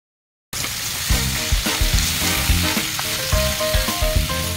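Thin slices of meat sizzling as they fry in a hot pan, starting about half a second in, with background music with a steady beat underneath.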